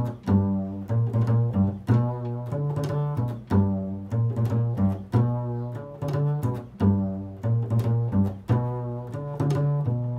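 Double bass played pizzicato, a run of plucked low notes, several a second, each ringing and fading before the next, in a freely improvised line.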